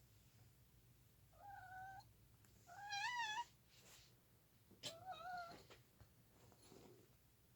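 A domestic cat meowing three times, short calls a second or so apart. The middle meow is the loudest and wavers in pitch, and there is a light click just before the last one.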